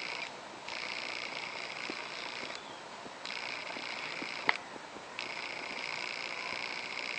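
A trilling insect, sounding in repeated high-pitched trills one to two seconds long with short gaps between them. A single sharp click comes about four and a half seconds in.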